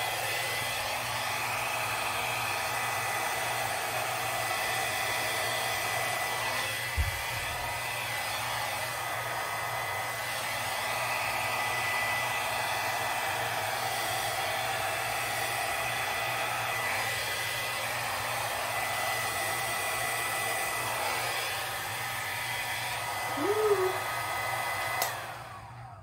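Small hair dryer running on its low setting, a steady rush of air with a thin steady whine, blowing poured acrylic paint across a canvas. A short rising-then-falling tone sounds shortly before the dryer switches off, about a second before the end.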